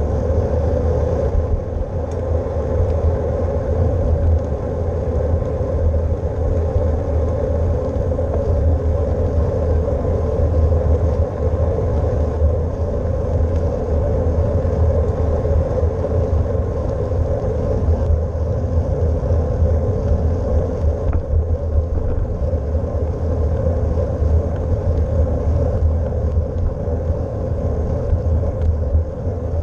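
Steady low rumble of wind buffeting a bicycle-mounted GoPro's microphone while riding, mixed with tyre noise on the road.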